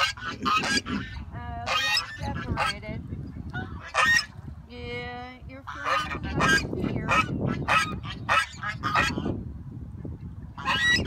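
Domestic geese honking, a quick run of short honks with one longer drawn-out honk about five seconds in.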